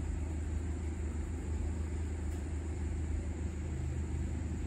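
Steady low background rumble with a hum, unchanging throughout, and a faint steady high whine above it.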